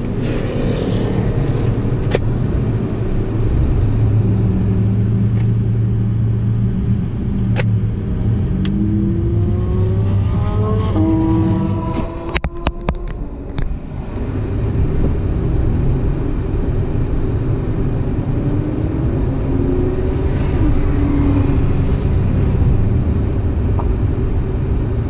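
A 2014 Kia Soul's four-cylinder engine running at low speed, heard from inside the cabin, with the revs rising a few times as it pulls away and rolls forward. About twelve seconds in the engine note drops briefly and a few sharp clicks are heard.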